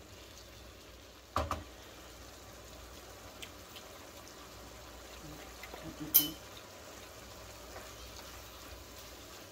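Ground beef and vegetables simmering in a little chicken stock in a skillet, a faint steady sizzle. A wooden spoon knocks against the pan about a second and a half in, and there is a louder sharp clack about six seconds in.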